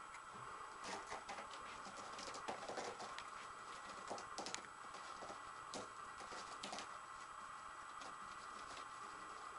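A raccoon's claws scrabbling and scratching on a sisal-rope cat-tree post as it climbs: irregular clicks and scrapes, busiest in the first seven seconds and sparser after.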